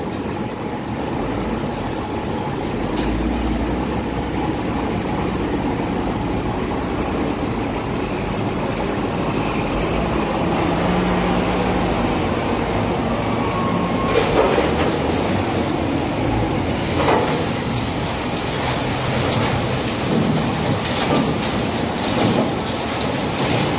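Continuous heavy mechanical rumble, with rattling, clattering knocks from about 14 seconds in, from trucks and coal handling at a colliery loading point.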